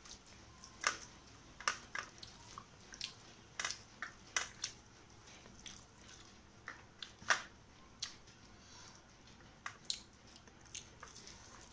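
Eating rice and rohu fish curry by hand: irregular sharp wet smacks and squishes, roughly one or two a second, from fingers working the rice and curry and from chewing.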